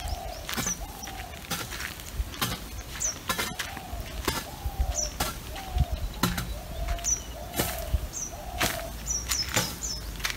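Birds calling: a short falling note repeated over and over, with a thin high chirp now and then and a quick run of several chirps near the end. Footsteps on dry ground tap about once a second.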